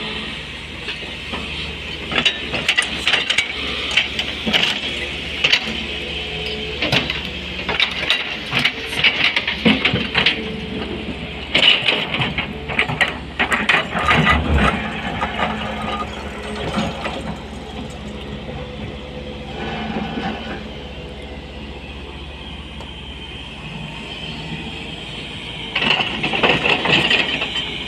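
SANY SY220C hydraulic excavator's diesel engine running steadily, under repeated knocking and clattering of stone as the bucket works the rock. The clatter comes in runs through the first half and again briefly near the end.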